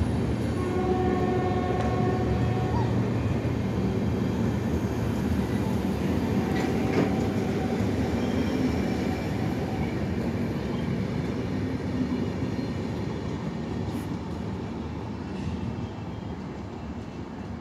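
Passenger train pulling out of a station and moving away: steady rumble of the coaches' wheels on the rails, with a short steady whine in the first few seconds. The sound slowly fades toward the end as the train recedes.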